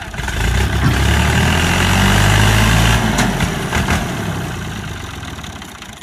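Al-Ghazi tractor's diesel engine working as it pulls a heavily loaded sugarcane trolley. It revs up about a quarter second in, runs loud and steady for a few seconds, then eases off after about three seconds, with a couple of knocks near the middle.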